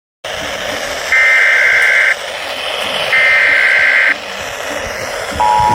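Emergency Alert System SAME header coming over a radio broadcast: two one-second bursts of high, shrill digital data tones about a second apart, over steady radio hiss. Near the end the steady two-tone EAS attention signal begins, announcing a new warning.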